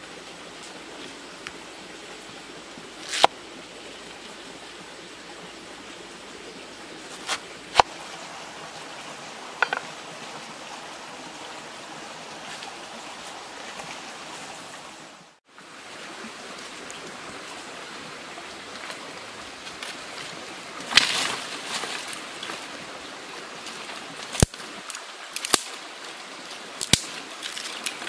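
A knife cutting banana-stem pith on a wooden chopping board, giving a few sharp clicks in the first half. Later, dry sticks and branches crackle and snap as they are handled for firewood, with several sharp cracks near the end, over a steady hiss.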